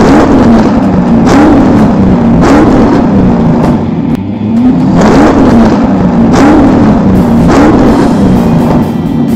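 Chevrolet Corvette C4's V8 being revved in repeated throttle blips, about one a second, each rev rising and falling back, with a short break about four seconds in.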